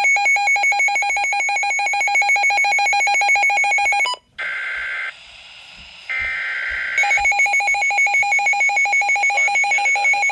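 Weather radio alert alarm beeping in a rapid, loud, pulsed two-tone pattern, signalling a severe weather warning. The beeping stops about four seconds in, two short bursts of a different warbling tone sound in the gap, and the beeping resumes about a second before the end.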